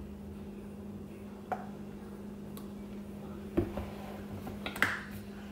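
A few sharp clicks and light knocks as a plastic flip-top creamer bottle and a glass jar are handled on a kitchen counter, the loudest near the end, over a steady low hum.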